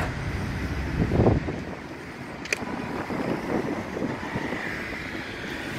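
Road traffic running past, loudest about a second in, with wind buffeting the microphone and a sharp click about two and a half seconds in.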